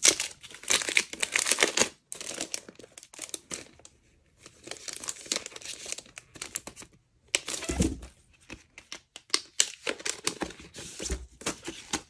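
Thin plastic packaging sleeve crinkling and tearing as it is pulled open by hand, in irregular bursts with short pauses, and a soft bump about eight seconds in.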